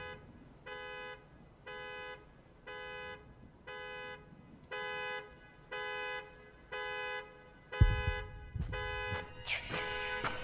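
Car alarm sounding the horn in regular honks, about one a second. A loud thump cuts in about eight seconds in.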